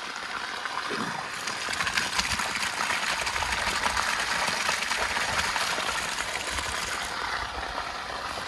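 Water gushing from a freshly opened ball valve at the end of a PVC water line and splashing onto bare dirt: the line is being flushed of dirt and PVC shavings. A steady rushing that cuts off sharply near the end.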